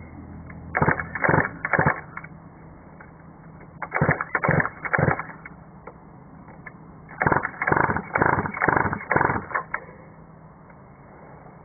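Mini moto's small two-stroke engine being pull-started three times, each pull a quick burst of the engine turning over that dies away without firing: the engine won't start.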